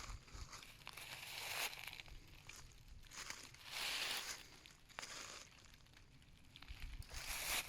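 Footsteps crunching and rustling through dry fallen autumn leaves, with a louder crunch every few seconds and small crackles of twigs and leaves in between.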